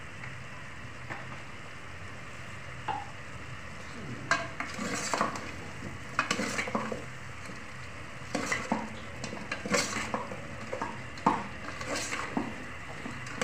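A metal spoon stirring chicken feet in a metal cooking pot, scraping and clinking against the sides in short spells from about four seconds in. Underneath is a steady sizzle of the sauce cooking.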